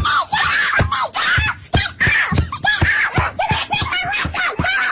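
High-pitched voices squealing and laughing in quick, bending bursts, with no clear words.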